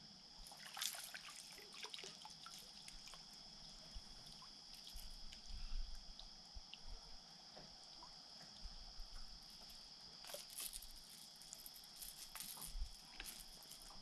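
Faint, steady high-pitched chirring of night insects such as crickets, with scattered soft clicks and ticks and a few low bumps.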